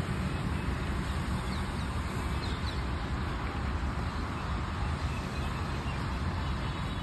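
Wind buffeting the microphone in a steady, uneven low rumble, over a faint hiss from a burning hand-held coloured smoke flare.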